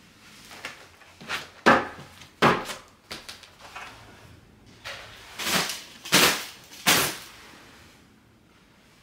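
A few short knocks and clatters, two of them sharp and loud, then three broad swishes of a broom sweeping wooden stairs, about two-thirds of a second apart.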